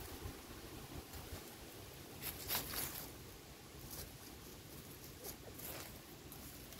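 Chickens pecking and pulling at grass: a few short, soft rustles, the clearest about two and a half seconds in, over a faint low rumble.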